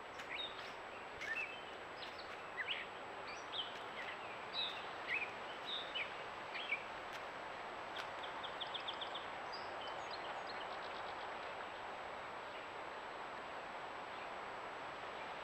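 Wild birds calling in woodland: short chirps and whistles for the first seven seconds or so, then a quick run of ticking notes about eight seconds in, over a steady background hiss with a faint high whine.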